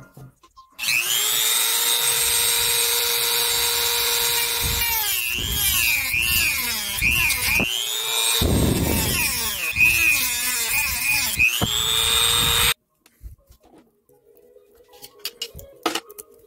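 Goxawee handheld rotary tool starting about a second in and running at a steady high whine. Its pitch dips and wobbles each time the bit bites into a toy car's black plastic interior to cut out the floor, with a rougher grinding stretch near the middle. The motor stops suddenly about three-quarters of the way through, leaving a few faint handling clicks.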